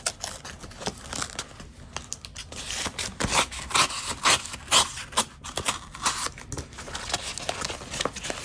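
Knife blade slitting and tearing along the paper edge of a manila envelope: a run of irregular scratchy rips and clicks, with paper crinkling as the envelope is handled.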